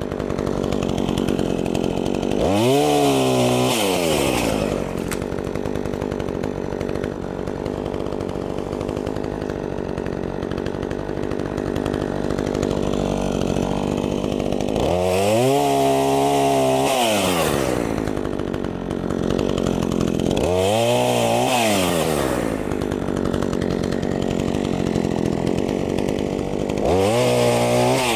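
Craftsman 42cc two-stroke chainsaw with an 18-inch bar, idling steadily and revved up to full speed four times. Each burst rises and falls in pitch over one to two seconds.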